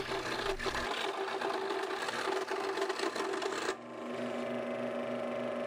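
Scroll saw running, its reciprocating blade rasping through a laminated hardwood block of red heart, koa, maple and walnut strips. About two-thirds of the way through the sound changes abruptly to a smoother, steadier hum with less rasp.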